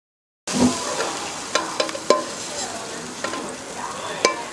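Stir-fried asparagus sizzling in a non-stick frying pan as a wooden spatula scrapes it out into a bowl. There are several sharp clacks of the spatula against the pan and bowl.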